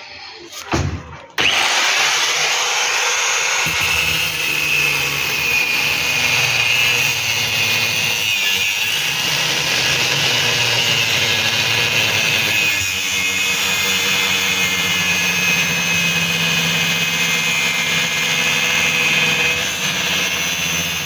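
A few knocks, then an angle grinder starts about a second and a half in and runs steadily under load with a high whine, cutting into the washing machine's drum and spider assembly to free its water-damaged gearbox.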